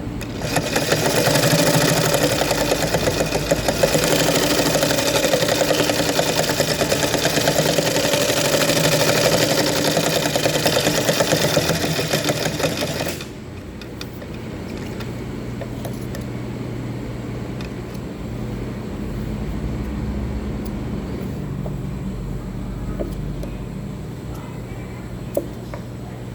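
Sewing machine running fast, a dense rapid stitching sound, which stops abruptly about halfway through. A quieter steady low hum is left after it, with a single sharp click near the end.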